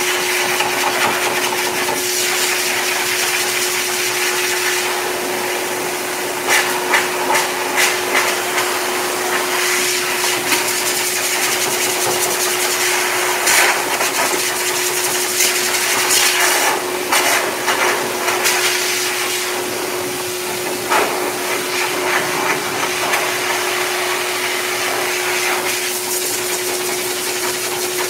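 K-9 heavy-duty dog dryer blasting air through its hose: a loud, constant motor hum under a steady rush of air. The airflow surges and flutters irregularly as the nozzle is worked through a Bernese mountain dog's thick wet coat.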